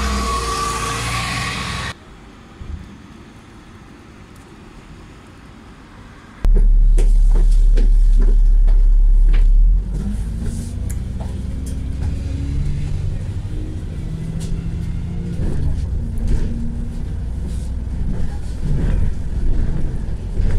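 Busy street traffic noise, cut off suddenly about two seconds in; after a quiet stretch, a very loud low rumble for about three seconds, then a double-decker bus's engine running and road noise as it drives, the engine pitch rising as it pulls away, heard from inside on the upper deck.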